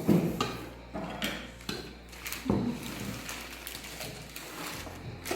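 Handling of a cardboard box and stainless steel cookware: scattered knocks and rustles as the box is moved aside and the pieces are set down.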